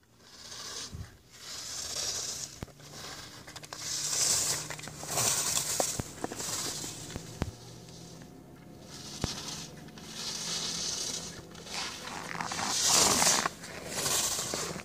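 Skis carving on packed snow through a short slalom course, a scraping hiss with each turn that comes in swells every second or so. The hiss is loudest near the end as the skier comes close.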